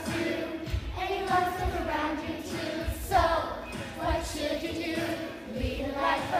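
A group of young children singing a song together, with repeated low thumps of a beat underneath.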